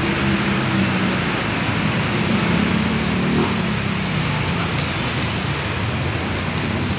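Steady road traffic noise, with vehicle engines running close by.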